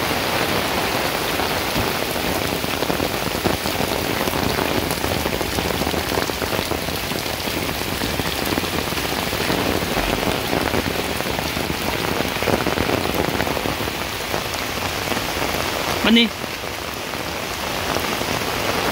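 Heavy downpour: a steady, dense hiss of rain falling on foliage and a concrete path. About sixteen seconds in, a brief voiced sound, a single short call, rises above the rain.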